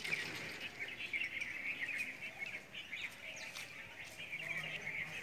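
Many small birds chirping together, a steady chatter of short high chirps.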